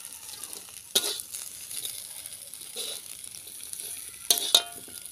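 Small shrimp frying in a little oil in an iron kadai, a steady sizzle, with a metal slotted spatula scraping and clanking against the pan about a second in and again near the end.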